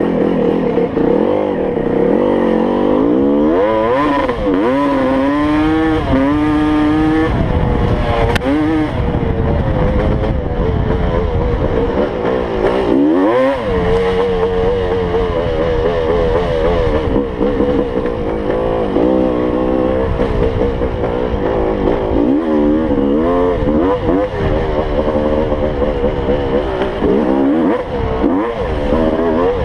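1987 Honda CR250R's 250 cc single-cylinder two-stroke engine under way, its pitch rising and falling again and again as the throttle is opened and shut. The engine is freshly rebuilt and, in the owner's view, still needs some tuning.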